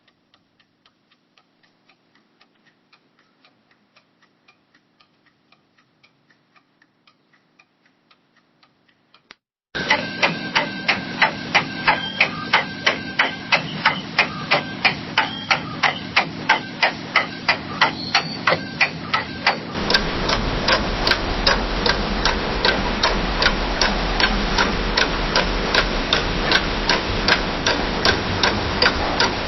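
A clock ticking steadily, a few ticks a second, in three takes one after another: faint at first, then about ten seconds in much louder with some room noise behind it, and about twenty seconds in over a steady low hum.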